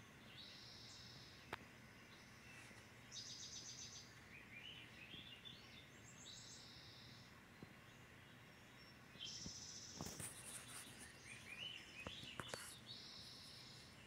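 Songbirds chirping, played faintly through a television's speakers: short repeated runs of high chirps, with now and then a quick rising series of notes. A few soft taps fall in between.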